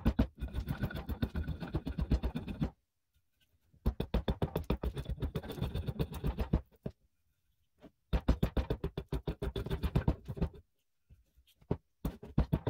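Hewing hatchet chopping into an oak handle blank in rapid short strikes, chipping away the excess wood to rough out the handle. The chopping comes in four runs of a few seconds each, with dead silence between them.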